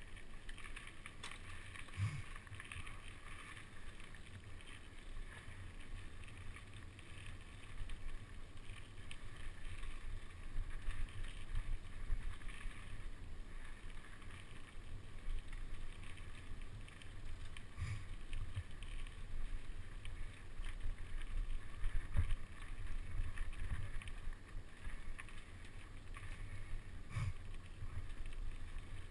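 Mountain bike rolling over a dirt forest trail: a steady, uneven rumble of tyres and frame on the ground, with a few sharp knocks as the bike hits bumps.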